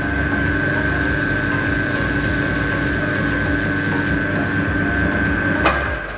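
Union Graduate wood lathe running at a steady speed, a steady motor whine over a low hum. It cuts off suddenly near the end.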